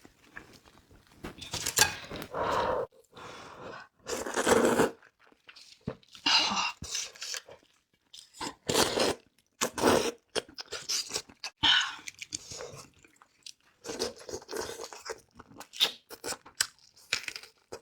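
A person eating luosifen rice noodles: irregular bursts of chewing and crunching bites, with short pauses between.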